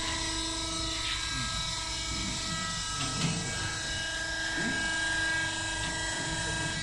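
Sawdust pallet-block hot press production line running: a steady machine hum and whine of many constant tones, with a short knock about three seconds in. Faint voices underneath.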